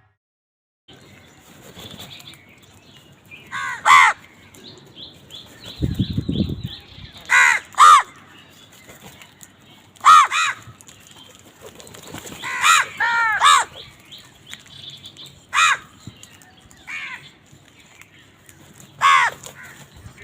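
Crows cawing: about a dozen loud, harsh caws, often in quick pairs, every few seconds. Faint chirping of small birds runs underneath, and there is a short low rumble about six seconds in.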